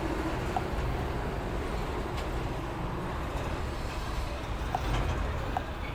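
Steady low rumble of background road traffic, with a few brief faint tones.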